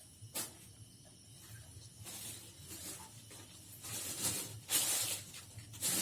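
A click about half a second in, then about four short, high hissing bursts, each about half a second long. They come closer together and louder toward the end.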